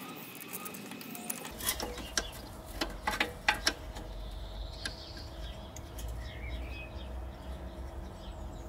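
Small hand tool and suspension height sensor being worked loose from their mounting under a Range Rover L322: scattered sharp clicks and light metal-and-plastic knocks, bunched between about two and four seconds in.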